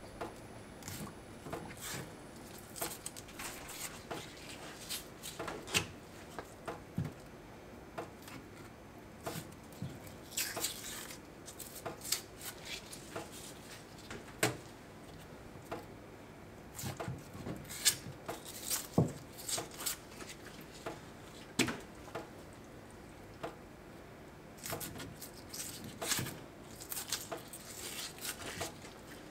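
Hands peeling the tough skin off thread-sail filefish (kawahagi) fillets on a wooden cutting board: scattered small tearing, rubbing and tapping sounds at irregular intervals.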